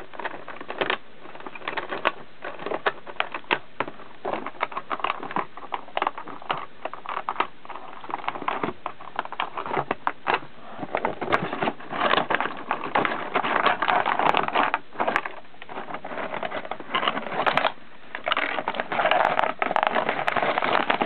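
Clear plastic packaging tray crinkling and clicking under the hands as an action figure is freed from its twist ties. The crinkling is louder about twelve seconds in and again near the end.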